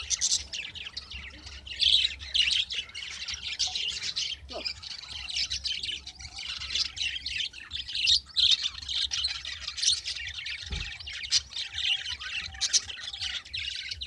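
A flock of caged budgerigars chattering, many quick high chirps and squawks overlapping without pause.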